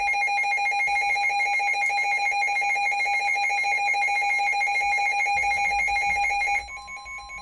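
Emergency alert on NOAA Weather Radio: a loud electronic alarm tone pulsing in a fast trill. About six and a half seconds in it drops in level, and the steady single-pitched weather radio warning tone comes in beneath it.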